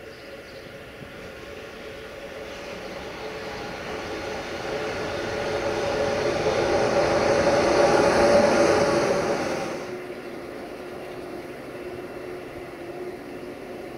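Freight train approaching and passing: its rolling noise swells over several seconds to a loud peak, then drops off suddenly about ten seconds in.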